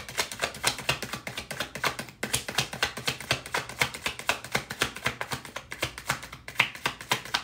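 A tarot deck being shuffled between the hands: a fast, continuous patter of cards slapping and flicking against each other, with a brief pause about two seconds in.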